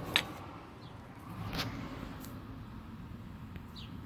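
Two sharp clicks of tools being handled during bottom bracket work, the first just after the start and louder, the second about a second and a half in, over a steady low background hum.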